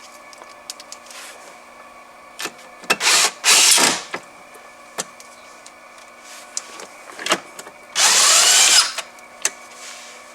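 Cordless power screwdriver driving screws into dashboard trim: two short runs of about a second each, about three seconds in and again about eight seconds in. Small clicks and handling knocks fall between them.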